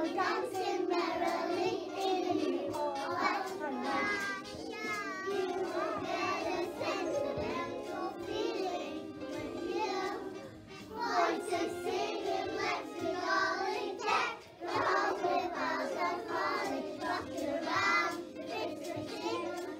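A group of young children singing a Christmas song together, in a small room.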